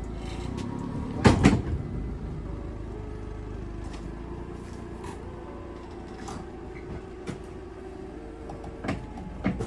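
An engine running steadily at idle, with two loud metal clanks about a second and a half in and a couple of lighter knocks near the end, from the drawbar and jack hitched to the vehicle.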